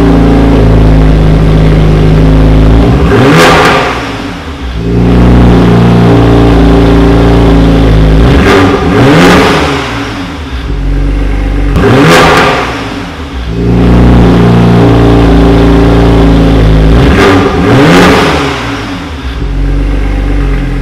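BMW M550d's straight-six diesel engine through an Akrapovic exhaust, running steadily and revved briefly four times, each rev rising and falling away.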